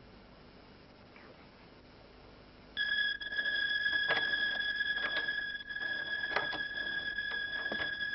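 A steady high-pitched electronic tone, alarm-like, comes on suddenly about three seconds in and holds without a break, with irregular clicks over it.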